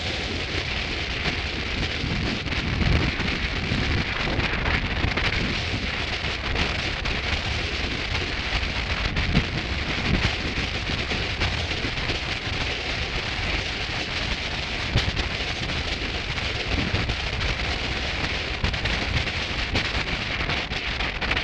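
Wind blowing over the camera microphone: a steady rushing hiss, with gusts of low rumble now and then.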